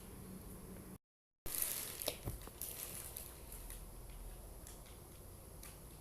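Faint scraping and light clicks of a spoon stirring basmati rice in a pot of boiling water. The sound cuts out for a moment about a second in, then resumes.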